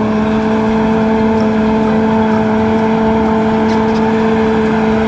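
A motor running steadily with a rushing hiss, most likely the water pump or sprayer used to wash the toys. It makes an even hum with a few overtones that neither rises nor falls.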